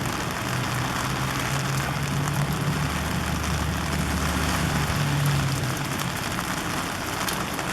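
Heavy rain falling steadily, with the low, steady hum of an engine coming in for a few seconds in the middle.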